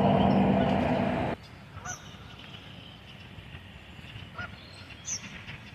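A loud steady noise that cuts off suddenly about a second and a half in, then a few short, faint calls from waterfowl on the river, about three of them spread through the rest.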